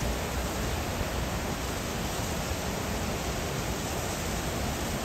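Water released through a dam's gates, plunging into the churning river below: a steady rushing noise with a low rumble underneath.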